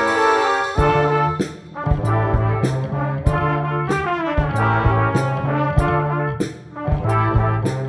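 A brass ensemble of trumpets playing with electric bass and a drum kit. A held chord gives way to a rhythmic passage, with drum and cymbal strikes about twice a second under the brass melody and bass line.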